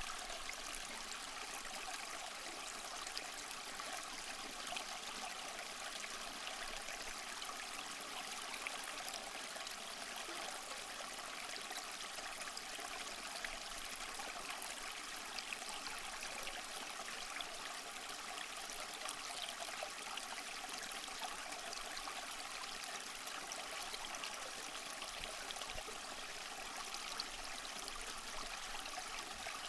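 Small waterfall splashing and trickling steadily, a continuous hiss of falling water with fine splashes and no deep rumble.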